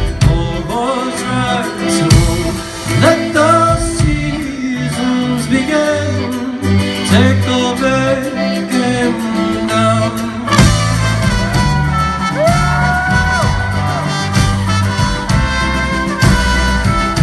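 Live indie-folk band music: a man's voice singing over ukulele and drums. About ten seconds in the band swells and a trumpet takes up the melody in long held notes.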